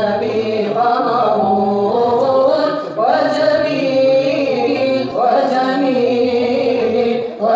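Devotional chanting in long, sliding melodic phrases, with a new phrase starting about every two to three seconds.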